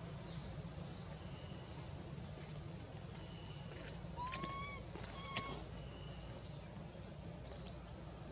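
Outdoor ambience: a steady low rumble under faint high chirps that repeat every second or so, with a few short rising chirping calls, two of them close together about halfway through.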